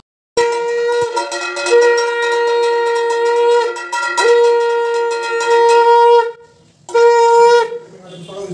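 Conch shell (shankha) blown in steady, loud blasts: one long held note of about six seconds that breaks briefly twice, then a shorter blast near the end.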